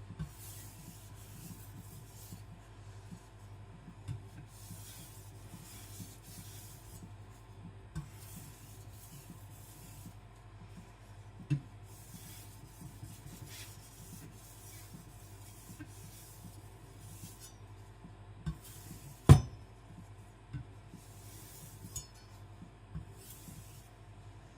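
Knife edge being stroked back and forth on a Kitayama 4000 fine whetstone: soft repeated scraping strokes about once a second, skating on top of the hard, glassy stone. One sharp click about 19 seconds in.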